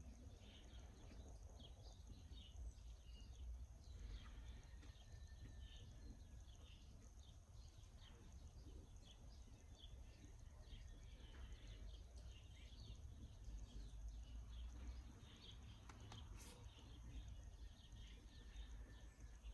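Near silence: a faint low rumble with scattered faint high ticks or chirps and a couple of soft clicks.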